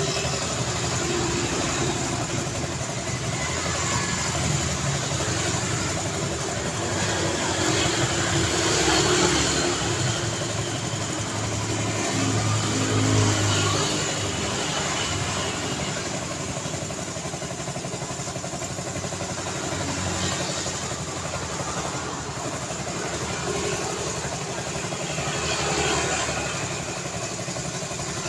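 Road traffic: a continuous stream of vehicles passing, engines and tyre noise, with several louder passes swelling and fading, the loudest about thirteen seconds in.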